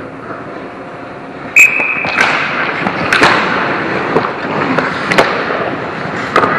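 Ice hockey play around the goal: skates scraping the ice and sticks and puck clacking. One loud, sharp clack about a second and a half in rings briefly, and scattered clacks follow.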